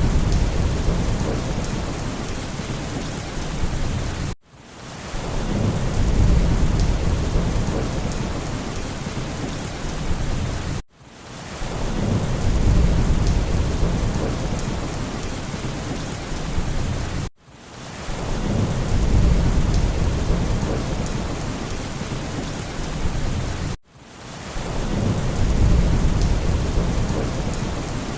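Heavy rain with a deep, rolling thunder rumble. The rumble swells up sharply, then slowly fades, over and over about every six and a half seconds. Each cycle breaks off with a brief sudden drop in sound, as in a short looped recording.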